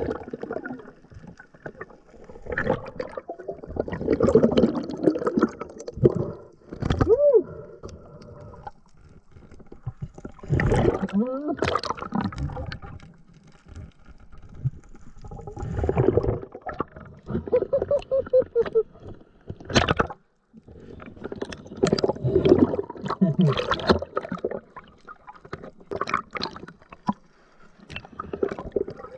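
Water gurgling and sloshing around the camera as a snorkeler swims and dives, in irregular swells with scattered clicks and a few short, muffled, voice-like glides.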